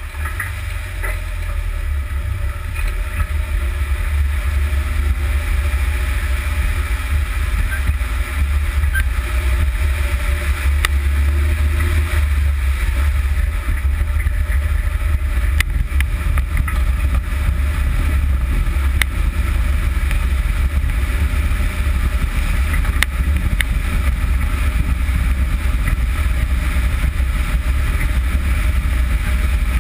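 Steady low rumble of wind and road noise picked up under a UAZ Patriot driving on a dusty dirt road, next to the front coil-spring suspension and tyre, growing a little louder in the first few seconds. Occasional sharp ticks sound through it.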